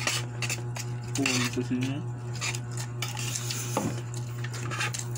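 Metal spoons and forks clinking and scraping against a bowl and a plate as several people eat noodles and rice, with many quick taps and scrapes. A brief voice sounds about a second in, over a steady low hum.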